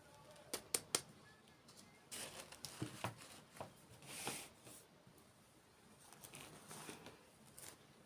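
Toy packaging being torn open and crinkled by hand, with a few sharp clicks about a second in, a longer burst of tearing and rustling after that, and lighter crinkles near the end.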